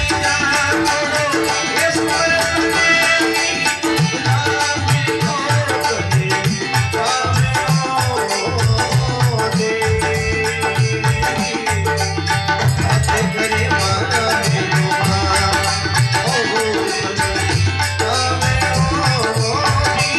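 Instrumental interlude of a Rajasthani folk bhajan: a sustained melody over a steady hand-drum rhythm with rattling percussion.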